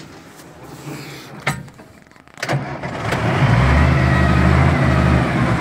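Tractor engine cutting out, then starting again about two and a half seconds in and settling to a loud, steady run. There is a sharp click about a second and a half in.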